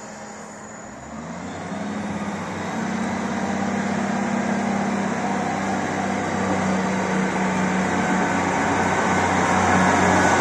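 South Western Railway diesel multiple unit moving through the platform. Its underfloor diesel engines come up about a second in and keep getting louder as the train draws past, over a steady rumble of wheels on rail.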